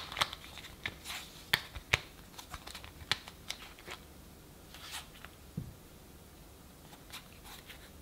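Handling sounds up close: scattered sharp clicks and taps with light rustling, denser in the first half, and a soft low thump about five and a half seconds in.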